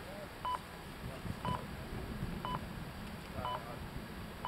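Electronic race-start countdown timer giving a short, high double-toned beep exactly once a second, five times, marking off the seconds of the final minute before a model yacht race starts.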